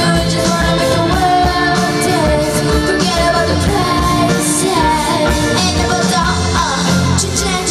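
Pop-rock band performing a song: a lead voice singing over drums and amplified instruments with a steady beat.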